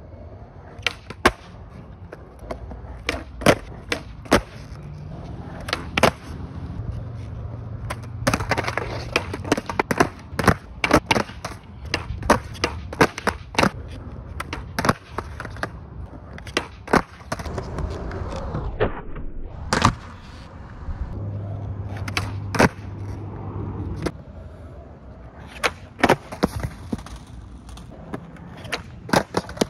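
Skateboard on a concrete skatepark: repeated sharp cracks of the tail popping and the board clattering down as flip tricks (360 flips, nollie 360 shove-its) are tried again and again, with the wheels rolling between attempts.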